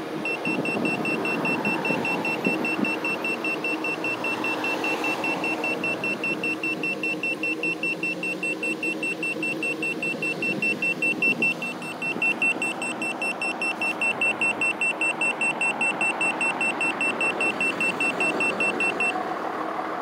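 Handheld Smart Sensor carbon monoxide meter's alarm beeping rapidly in a high, steady-pitched tone, set off by car exhaust as the reading climbs past 100 ppm CO. The beeping stops suddenly near the end. A car engine idles underneath.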